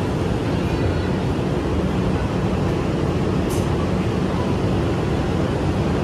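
A PATH train standing at a station platform, its equipment giving a steady low hum, with a brief hiss of air about three and a half seconds in.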